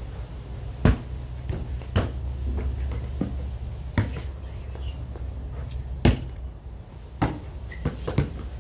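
Basketball hits: the ball striking the backboard and rim and bouncing on concrete, about half a dozen separate thuds a second or two apart, two close together near the end, over a steady low hum.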